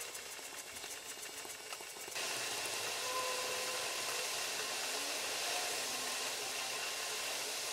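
Pyrography pen nib scratching across pine wood in rapid short strokes, as fine quick ticks. About two seconds in, a louder steady hiss sets in and carries on.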